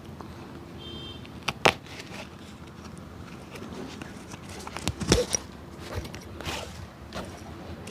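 Hand work on a shoe: a few sharp taps and knocks, the loudest about a second and a half in and a quick cluster around five seconds, with short scraping strokes between them.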